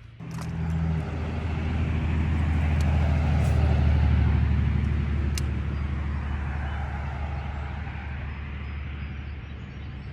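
Low motor hum with several steady low tones that starts suddenly, swells to its loudest about four seconds in, then slowly fades.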